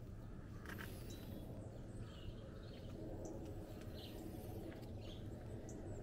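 Birds chirping and calling in short, scattered notes over a steady low outdoor rumble, one sweeping call about a second in.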